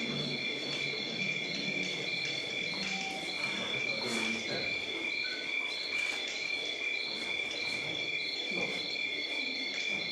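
Crickets chirring steadily with a pulsing higher note, a night-time field ambience played as a sound effect to set the scene.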